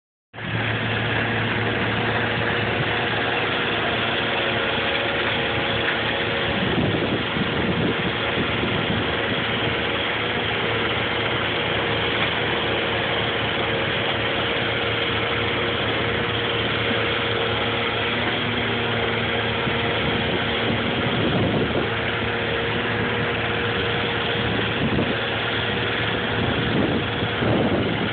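Steady drone of heavy machinery: the engine-driven blower of an air curtain burner forcing air over a smouldering stump pit, with an excavator's engine running alongside. Now and then a brief rush of noise.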